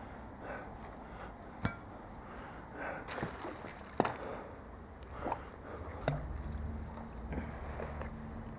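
Handling noises of a magnet-fishing magnet and rope at the canal's edge: scattered knocks and clinks, a short ringing clink about one and a half seconds in and a sharper knock about four seconds in, with a low rumble in the last few seconds.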